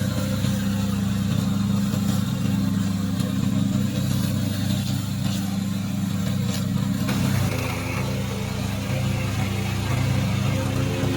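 Engine of a remote-control slope mower running steadily, with its note changing about seven seconds in.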